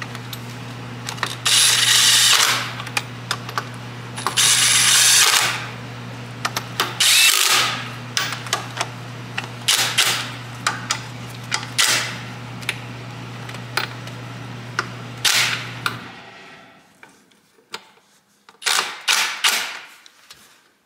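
Cordless impact wrench running engine support bracket bolts down in repeated bursts: two longer runs of about a second, then several short blips. The bolts are only being snugged, to be finished with a torque wrench. A steady low hum runs underneath and stops about three quarters of the way through.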